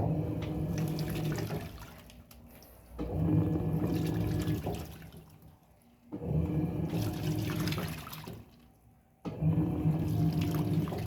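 Electrolux Turbo Economia top-loading washing machine agitating a load in water: the motor hums and the water sloshes in four bursts of about two seconds each, with short pauses between them as the agitator turns one way and then the other.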